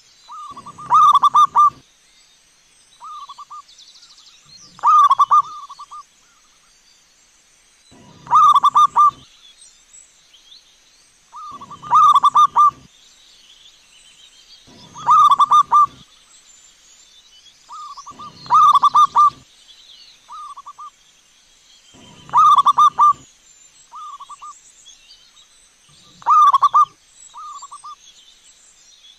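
Zebra dove (perkutut) cooing: a run of quick coos lasting about a second, repeated eight times at roughly three-and-a-half-second intervals, some followed by a shorter coo.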